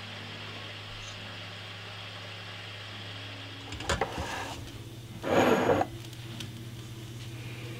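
Steady low hum in a kitchen, with a few light knocks about four seconds in and a brief, louder handling noise about a second and a half later as the cloth-covered colander and jar are handled.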